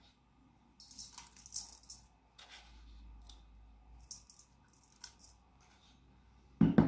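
Coarse salt being spooned out of a plastic bowl and sprinkled over raw chicken pieces: short spells of soft, scratchy, rattling grain sounds, with a brief loud sound near the end.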